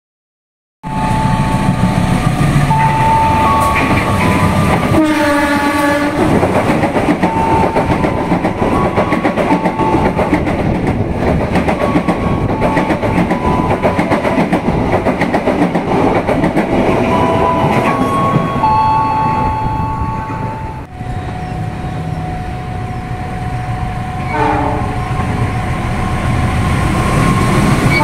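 Indonesian GE diesel-electric locomotives (a CC203, then a CC206) passing with passenger trains: a loud, steady rolling rumble of engine and wheels on the rails. A horn blast of about a second sounds about five seconds in. After a cut to the second train about 21 seconds in, there are two more short horn blasts near the end.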